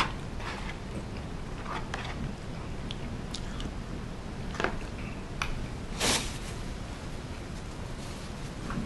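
Eating sounds: a wooden spoon knocking and scraping in a plastic soup bowl, soft chewing and sipping, and one louder, short noisy burst about six seconds in.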